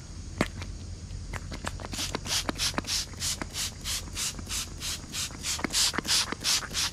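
K&N air filter cleaner spray bottle squirted again and again over a cone air filter, a quick run of short hissing spritzes at about three a second, starting about two seconds in. A few light clicks come before the spraying.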